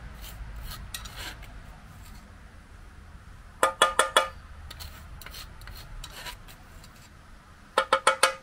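A metal fork scraping dross off molten lead in a lead-melting pot, then tapped four or five times in quick succession, about four seconds in and again near the end, giving ringing clinks as the dross is knocked off onto a sheet of glass.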